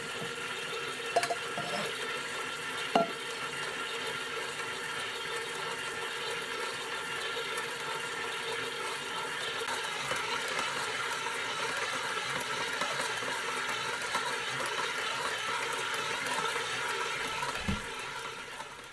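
Electric stand mixer running steadily with a whining motor while its dough hook kneads flour into dumpling dough, with a couple of sharp knocks in the first few seconds. It fades out near the end.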